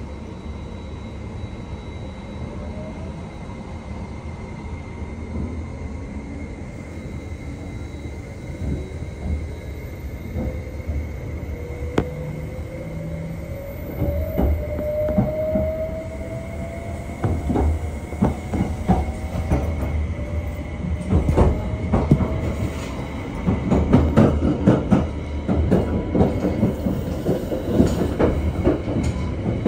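Inside the motor car of a JR West 273 series electric express train pulling away and accelerating: faint whining tones from the traction motors rise in pitch over the first twenty-odd seconds. Wheel clicks over the rail joints come in about nine seconds in and grow quicker and louder toward the end.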